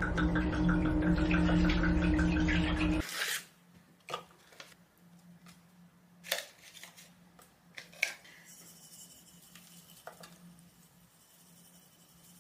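Red wine poured from a bottle into a saucepan, a dense gurgling pour lasting about three seconds that stops suddenly. After it comes a quiet stretch with a few light clinks and knocks of pan and utensil handling.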